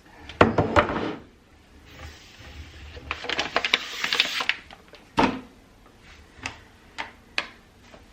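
Household items being handled and set down: a few sharp clicks and knocks, a rattling cluster of clatters in the middle, and a single louder knock about five seconds in.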